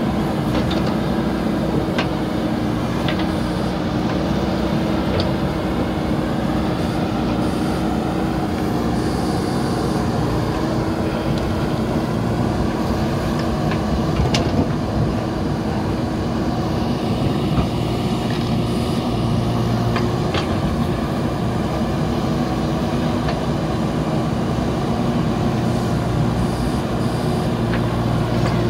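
JCB 3DX backhoe loader's diesel engine running steadily while the backhoe arm digs, with a few sharp clanks scattered through.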